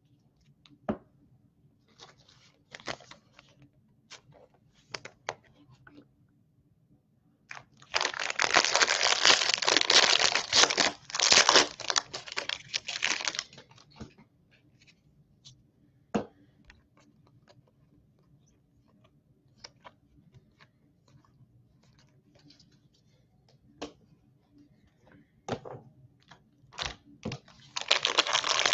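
Foil trading-card pack wrappers being torn open and crinkled: one long loud stretch of tearing and crinkling about 8 seconds in, lasting some five seconds, and another starting near the end. In between come scattered light clicks and taps as the cards are handled.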